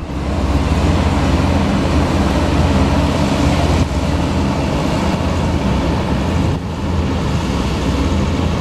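Passenger hovercraft running across open water: a steady, loud drone from its engines and rear propellers.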